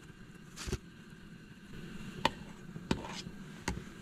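Four separate taps and knocks of a utensil and a mayonnaise jar against a wooden cutting board while mayonnaise is spread on a tortilla. The sharpest knock is a little past the middle.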